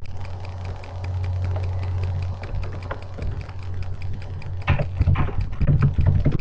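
Computer keyboard keys clicking in irregular taps over a steady low hum, with louder bumps and knocks in the last second and a half.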